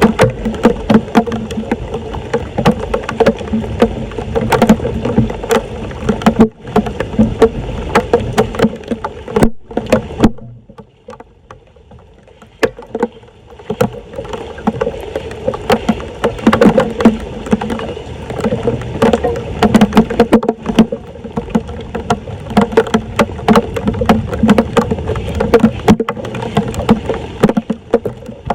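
Floodwater splashing and sloshing with many short knocks and scrapes over a steady low hum. The sound drops away for about three seconds near the middle.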